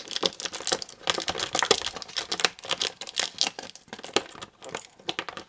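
Clear plastic blister packaging crinkling and crackling in a dense, irregular run as a small toy accessory is worked loose from it by hand.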